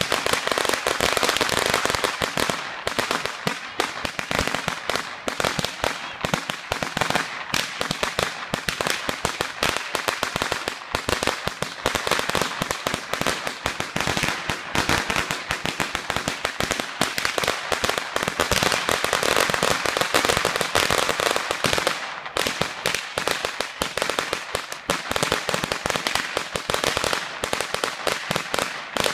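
A long string of small firecrackers going off: a rapid, continuous crackle of many small bangs that eases briefly about two-thirds of the way through.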